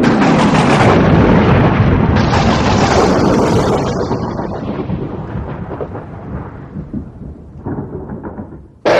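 A sound-effect crash with a long, noisy rumble that slowly dies away over several seconds. A second loud crash starts suddenly near the end.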